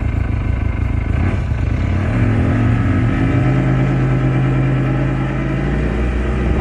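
CFMoto ATV engine running under throttle, holding a steady note that steps up a little in pitch about three and a half seconds in.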